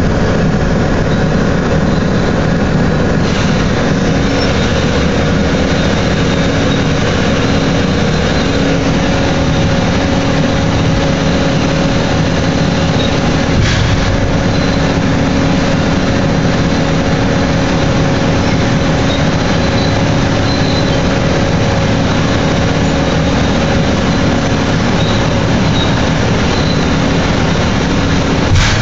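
Big hydraulic truck dumper tipping its platform: a loud, steady machinery drone with a constant low hum from the hydraulic drive, and a single click about halfway through.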